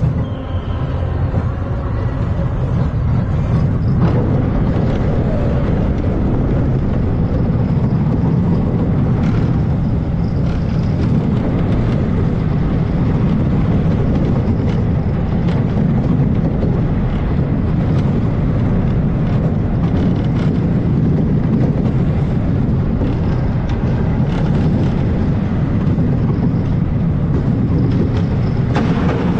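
Chance Rides Big Dipper family roller coaster train running its course: a steady, loud rumble of wheels on steel track, with a few clanks along the way.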